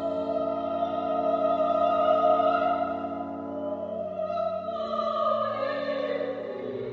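Pipe organ playing slow held chords, with a higher melody line above them that wavers in pitch and slides down near the end.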